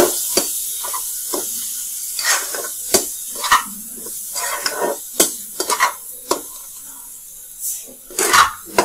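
Onion-tomato masala with ground spices sizzling in oil in a kadhai while a spatula stirs it, scraping and tapping irregularly against the pan. The sizzle slowly dies down.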